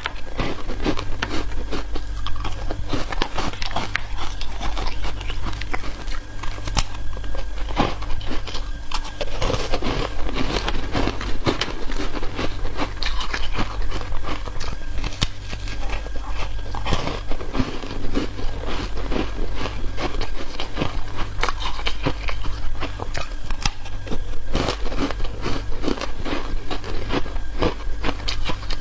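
Foam ice being bitten and chewed close to the microphone: a continuous stream of crisp crunches and crackles, over a steady low hum.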